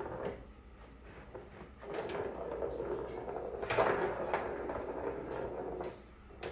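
Plastic tray scraping and knocking, with a few sharp clicks, as cats paw at a small ball inside it; the loudest scrape comes a little under four seconds in.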